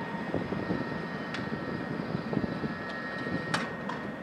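Open-air railway station ambience: a steady low rumble of distant vehicles with a thin, steady high whine over it and a couple of faint clicks.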